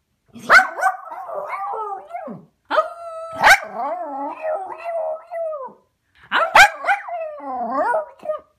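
Cairn terrier giving three long 'glargle barks': each starts with a sharp bark and runs on into a warbling, gargling howl that wavers up and down in pitch.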